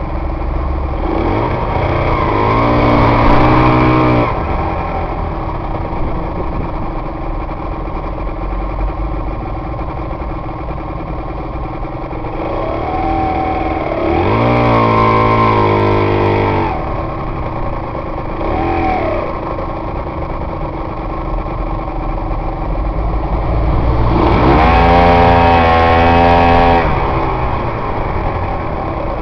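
Aprilia RS125 two-stroke single-cylinder engine heard from a helmet camera, running steadily and revving up three times, with a short blip of throttle between the second and third rise.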